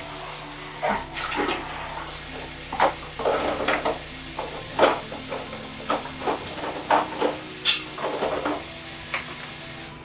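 Tap water running into a sink while pots and pans are washed: a steady splash of water broken by many short knocks and clatters of cookware against the sink and water.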